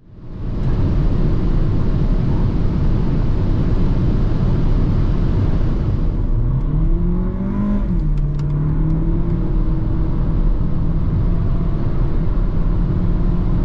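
Cabin sound of a Renault Arkana's 1.3 TCe 140 turbocharged four-cylinder petrol engine at motorway speed, over steady road and tyre noise. About six seconds in the engine note rises under acceleration, drops at an upshift of the seven-speed automatic after a little over a second, then climbs slowly again.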